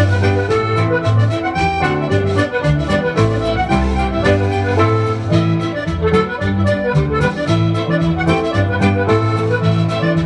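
Medieval-style folk dance music with a steady beat, played for a round dance.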